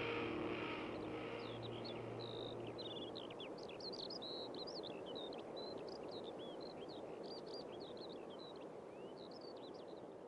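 Music fading out over the first couple of seconds, giving way to birds chirping in many quick, short notes over a steady outdoor hiss. Everything fades away near the end.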